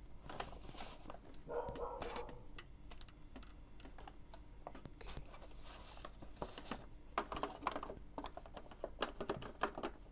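Hands handling the plastic waste ink pad cover and housing under an Epson L-series inkjet printer: scattered sharp plastic clicks and taps, a short scrape about one and a half seconds in, and a quicker run of clicks in the second half.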